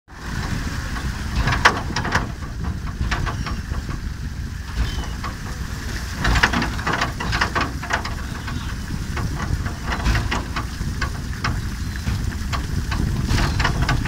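A fishing vessel's machinery running with a steady low rumble while a car wreck is winched up out of the sea, with scattered knocks and splashes as water pours off it.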